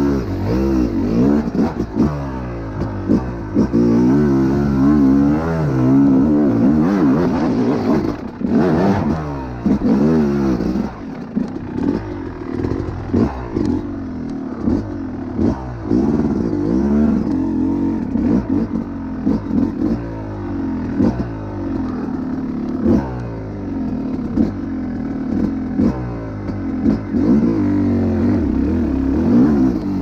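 Yamaha YZ250 dirt bike engine revving up and down over and over as the throttle is blipped and eased, with scattered knocks in between.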